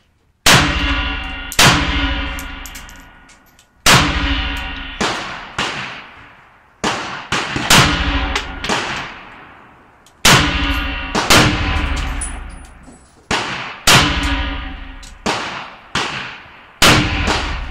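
Rifle fired shot after shot, about fifteen rounds at roughly one a second with two short pauses. Each shot is followed by a long ringing decay.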